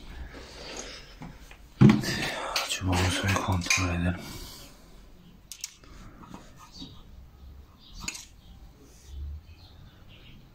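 Metal parts being handled at a diesel tiller engine: a sharp knock about two seconds in, a couple of seconds of clanking and clatter, then a few light clicks as the oil dipstick is taken out of the crankcase to check the oil level.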